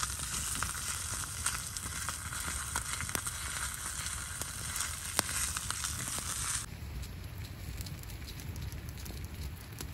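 Steak sizzling in oil and butter in a pan over a campfire, a dense crackly hiss with fire crackles. About two thirds of the way through it cuts off suddenly, leaving a quieter background with scattered faint ticks.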